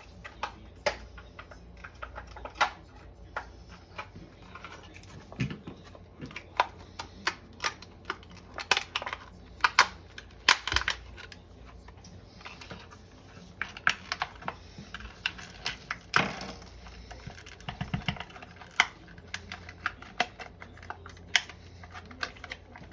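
Irregular light clicks and knocks, several a second, from small hard objects being handled, with a low steady hum beneath.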